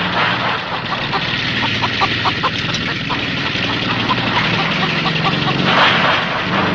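An engine running steadily, with a noisy hiss over it.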